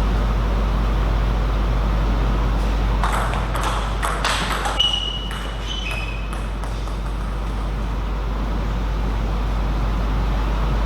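Steady background hum of a table tennis hall, broken by a short, irregular run of sharp table tennis ball clicks about three to five seconds in, followed by two brief high squeaks.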